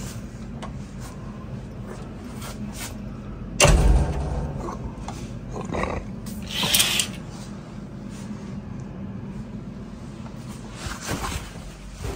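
Steady low hum of bathroom ventilation, with a loud knock about three and a half seconds in, a brief hiss a few seconds later and scattered light clicks of handling.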